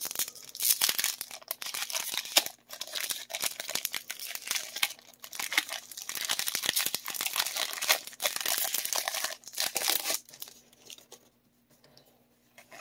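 A Pokémon trading card booster pack's foil wrapper being torn open and crinkled in the hands. The dense crinkling lasts about ten seconds, then drops to a few faint rustles.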